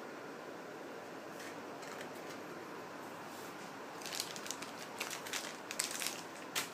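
Faint steady hiss of a small room, then from about four seconds in a quick run of light crackles and clicks from something being handled out of view, with a crinkling, plastic-like quality.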